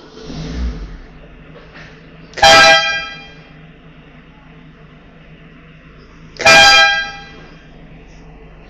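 Vehicle horn sounding two short blasts about four seconds apart, over a steady low hum, with a dull thump at the start.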